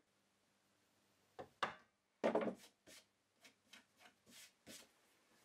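A chisel paring into a beech board along a knife line, cutting a guide groove: a series of short, quiet scraping cuts, the loudest about two and a half seconds in, followed by several fainter scrapes.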